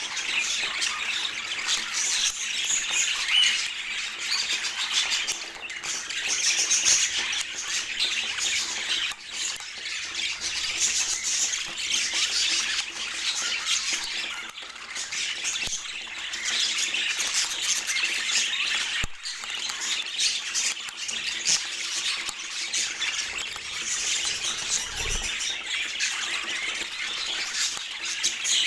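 Budgerigars chattering and warbling continuously, a dense mix of squawks and chirps.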